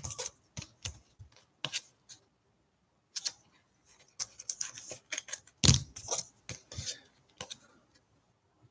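Trading cards and their packaging being handled: scattered short clicks, scrapes and rustles, with a louder knock right at the start and another about six seconds in.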